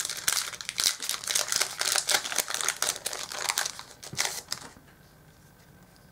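Foil booster-pack wrapper crinkling and crackling as it is torn open and pulled apart by hand, stopping about three-quarters of the way through.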